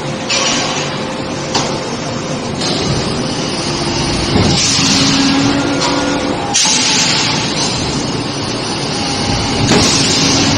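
Electric screw forging press striking a red-hot shackle body in the die: several heavy blows a few seconds apart, with stretches of loud hissing between them over steady forge-shop machine noise.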